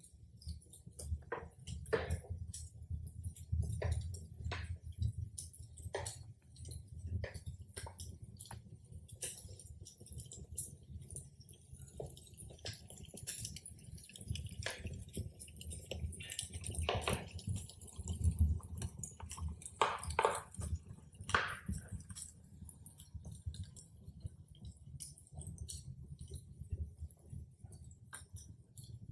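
Wood fire crackling: irregular snaps and pops over a low steady rumble.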